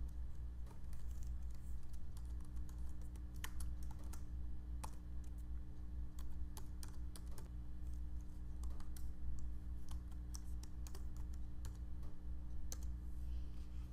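Typing on a computer keyboard: irregular key clicks, sometimes in quick runs, over a steady low hum.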